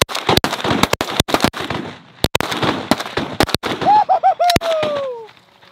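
Volley of shotgun fire from several hunters: more than a dozen shots in quick clusters over the first three and a half seconds. Then a long call that falls in pitch.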